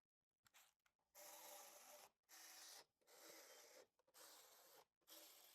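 Very faint, repeated rubbing strokes of a tool working the bolts of a small engine's housing, five short strokes of about half a second to a second each.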